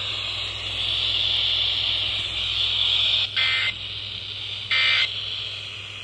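Midland emergency weather radio's speaker hissing with FM static on a poorly received 90.5 FM station. Two short buzzy electronic beeps from the radio sound in the second half, about a second and a half apart, with a third starting right at the end, as its buttons are pressed.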